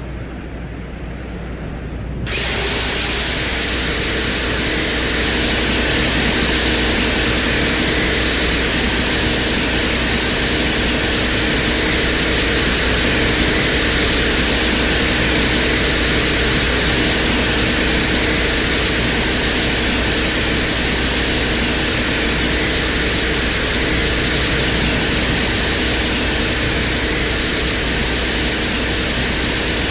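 Audio presented as the Soviet Venera 14 lander's microphone recording of atmospheric wind noise at the surface of Venus: a steady, dense hiss over a low hum. It jumps suddenly louder and brighter about two seconds in, then holds.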